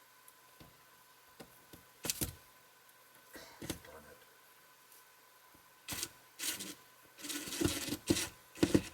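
Scattered knocks, taps and rustles of hands handling a tape measure and a window pattern during measuring, a few single knocks at first and a quick cluster of louder ones near the end.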